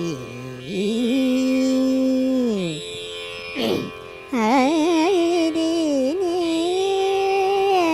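Music: a single melodic line holding long notes that slide downward, then, about halfway through, a quickly wavering, ornamented phrase.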